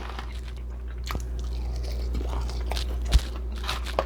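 Close-up chewing and biting: a person eating, with a few short, sharp mouth clicks and crunches, over a steady low hum.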